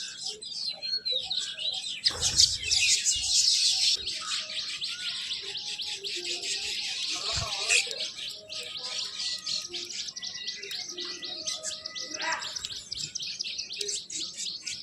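Many small birds chirping and chattering at once, a dense stream of overlapping high calls that is loudest about two to four seconds in.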